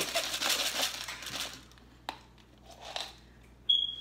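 Jelly beans rattling in a plastic BeanBoozled container as it is shaken, fading out about a second and a half in, followed by a few light clicks and a short high-pitched tone near the end.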